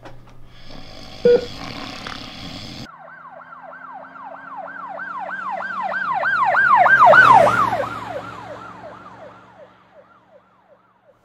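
Emergency vehicle siren in a fast yelp, about four sweeps a second. It grows louder, passes with a drop in pitch about seven seconds in, and fades away. Before it there is a single short electronic beep over a hiss.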